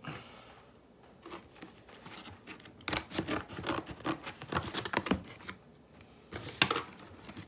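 Cardboard shipping box being opened by hand: scattered crackling and tearing of cardboard and packing tape, in short clusters with pauses between, and a few sharper clicks near the end.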